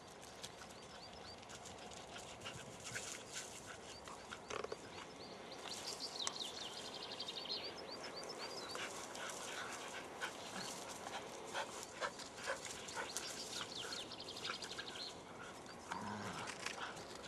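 Border collies playing: panting, with their paws scuffling and thudding on dry grass and pine needles, and a brief low growl about sixteen seconds in as two of them wrestle.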